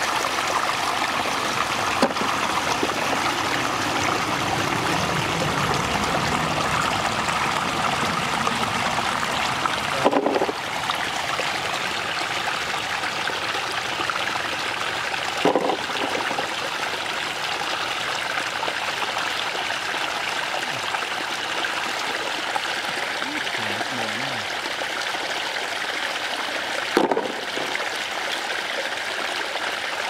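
Shallow muddy water flowing and trickling steadily, with three brief thumps about ten, fifteen and twenty-seven seconds in.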